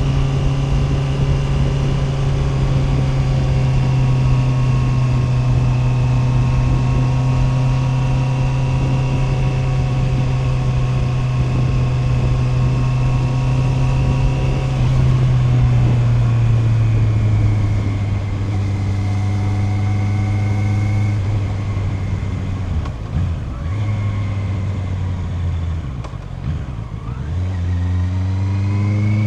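Honda CB650R's inline-four engine under way, held at steady revs for about the first half, then the revs fall in steps, dipping lower twice, before climbing again near the end as it accelerates.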